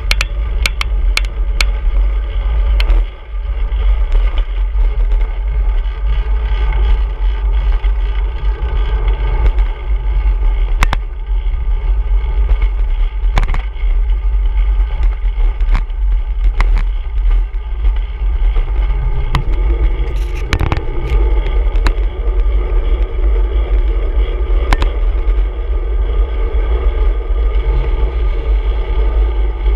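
Wind rumbling steadily on a handlebar-mounted camera's microphone while riding a road bike in city traffic, over tyre and traffic noise. Scattered sharp clicks and knocks are heard throughout.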